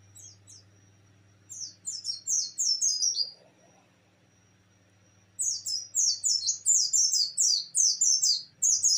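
A caged white-eye (pleci) singing in the rapid 'nembak' style, a string of sharp, high notes that each fall in pitch. Two quick notes open it, a short run follows about a second and a half in, and after a pause a longer, denser run of about four notes a second carries on to the end. This fast song is the kind played to spur other pleci to sing.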